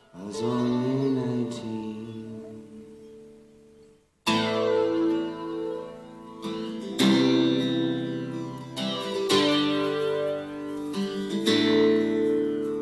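Acoustic guitar strummed solo, chords ringing out. About four seconds in it drops briefly to near silence, then comes back with fuller strummed chords that change every second or two.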